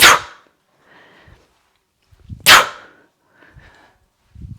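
Three sharp, forceful exhales, one about every two and a half seconds, each timed with an explosive hip snap to full extension. Fainter breaths are drawn in between.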